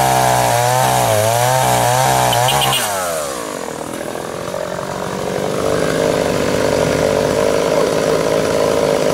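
A two-stroke chainsaw cuts through a thick fallen log at full throttle, its pitch wavering as the chain bites. About three seconds in, the throttle is released and the revs fall away to idle. Past the middle the saw picks up again and runs steadily.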